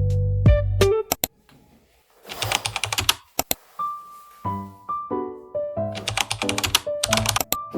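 Computer keyboard typing in quick runs of clicks, about two seconds in and again near the end, over background piano music.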